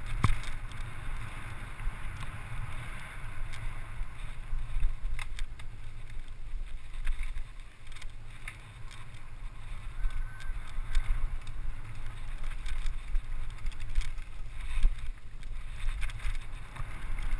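Mountain bike descending a dirt forest trail at speed: a steady low rumble of wind and tyres on the bike-mounted camera's microphone, with the bike rattling in scattered sharp knocks over bumps.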